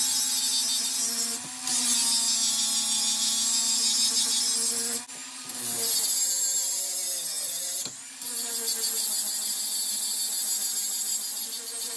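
Angle grinder grinding a steel hammer head: a steady high hiss of abrasive on steel over the grinder motor's whine. The grinding dips briefly three times, about a second and a half in, around five seconds and around eight seconds.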